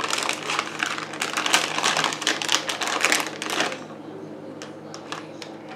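A plastic candy wrapper crinkling in quick, dense crackles. It stops a little under four seconds in, leaving a few faint clicks.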